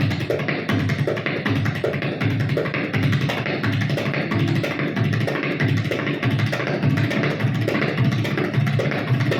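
Tabla played in a fast, steady rhythm imitating a train running on its tracks, deep bass strokes pulsing under rapid treble strokes.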